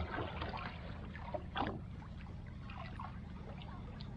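Water splashing and sloshing against a small fishing boat's hull in irregular surges, the strongest at the start and about a second and a half in, over a steady low rumble.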